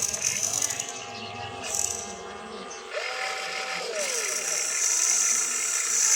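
Small electric motors and gearboxes of radio-controlled construction toys whining, spinning up to a steady pitch and winding down again, twice, over a constant high whine.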